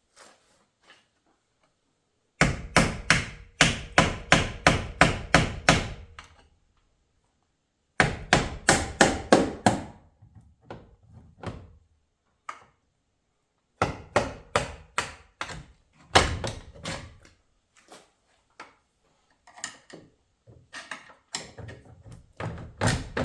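Hammer blows on a Hyundai/Kia 8-speed automatic transmission during teardown: four bursts of quick, heavy strikes, about three or four a second, with lighter scattered knocks between them.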